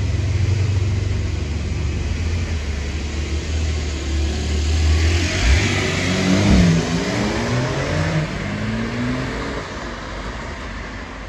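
Porsche 911 Turbo (992) twin-turbo flat-six running low and steady, then accelerating about five seconds in, its pitch climbing and dropping in steps as it changes gear, before fading as it moves away.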